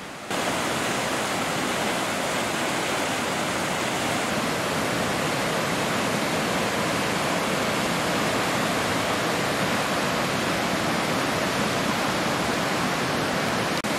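Spray River rapids rushing over rocks: a steady, even rush of whitewater that cuts in just after the start, with a brief dropout near the end.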